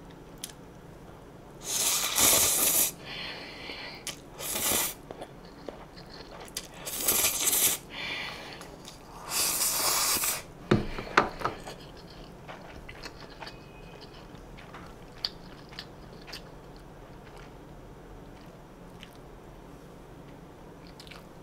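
A person slurping up stir-fried instant noodles in four loud hissing slurps over the first ten seconds, then chewing with small soft clicks.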